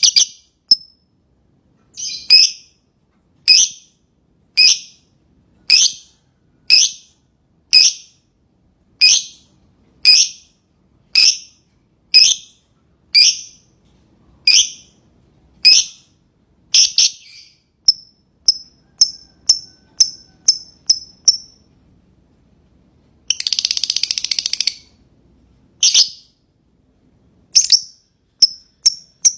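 Lovebird calling: a run of sharp, high-pitched calls about once a second, then quicker short chirps at two or three a second. Near the end comes a rapid chattering trill of about a second and a half, the lovebird's 'ngekek', followed by a few more single calls.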